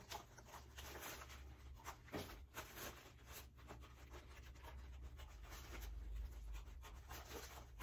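Faint, irregular crinkling and crackling of a cling-wrap-and-packing-tape pattern shell being handled and cut along its seams, over a steady low hum.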